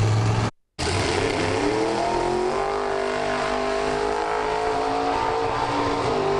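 Drag-racing sedan's engine at full throttle, accelerating down the strip: its pitch climbs for about a second, then holds roughly steady. The sound cuts out briefly about half a second in.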